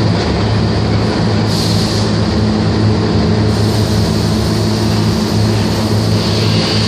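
Steady, loud hum of shop machinery: an even low drone with a hiss over it.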